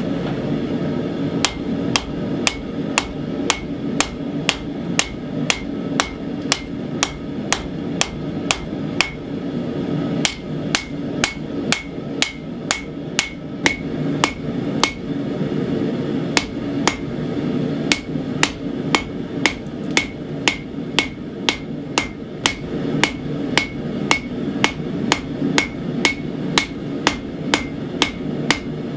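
Hand hammer striking a hot 80CrV2 steel knife blank on an anvil in a steady rhythm of about two blows a second, each blow ringing briefly, over a steady low hum.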